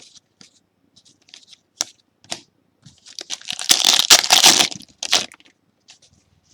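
Trading cards being handled with light clicks and flicks, then a card pack's wrapper crinkling and tearing for about two seconds near the middle.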